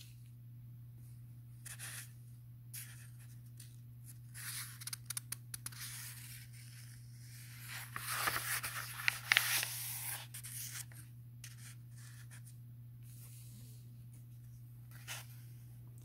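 Pages of a paperback book being turned by hand: paper rustling and sliding in two short spells, about four seconds in and again about eight seconds in, over a steady low hum.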